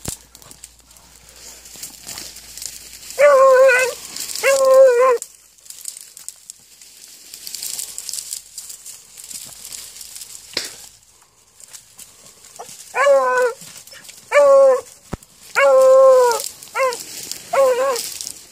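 A beagle-type hound baying in long, wavering bawls: twice a few seconds in, then five more in quick succession near the end. This is the voice a rabbit hound gives while trailing scent. Dry brush crackles and rustles between the calls.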